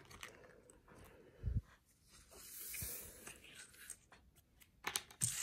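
Small plastic counting pieces handled on a tabletop: a soft thump about a second and a half in, a brief rustle, then several light clicks near the end.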